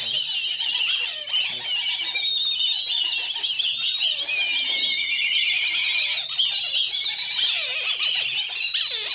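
A crowd of black kite nestlings calling together: a dense, unbroken chorus of high, wavering cries that overlap one another, loud enough to be called deafening.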